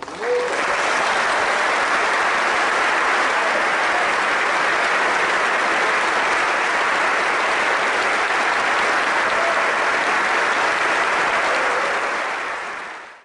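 Audience applauding, breaking out suddenly at the start and holding steady, then fading out near the end.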